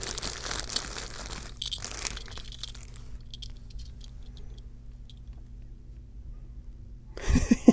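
Crumpled newsprint packing paper rustling and crinkling as it is handled in the box, for about the first two and a half seconds. After that come quieter handling sounds with a few faint clicks.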